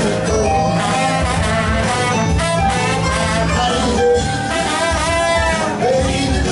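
Live band playing upbeat jazz, with saxophone and brass horns holding notes over a steady bass line.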